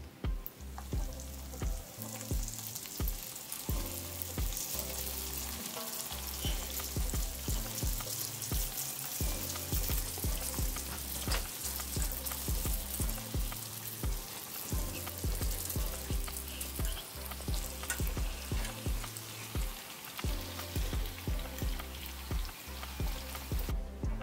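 Donut dough rounds deep-frying in a pan of hot oil: a steady crackling sizzle, over background music with a steady beat. The sizzle cuts off suddenly just before the end.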